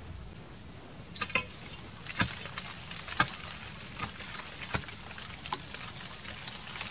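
A long digging pole jabbing and scraping into earth among tree roots. It makes sharp, irregular knocks roughly once a second over a steady hiss.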